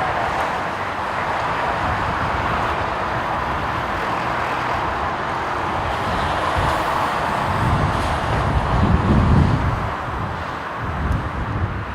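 Steady jet noise from a Boeing 777-300ER's twin GE90 turbofans on landing approach, with gusts of strong wind buffeting the microphone in low rumbles about eight to ten seconds in and again near the end.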